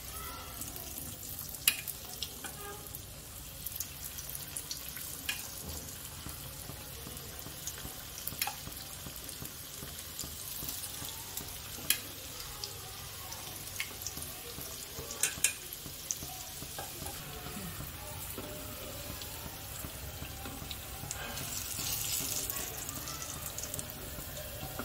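Batter pakoras deep-frying in hot oil in a small pan: a steady sizzle with occasional sharp ticks, growing louder for a moment near the end.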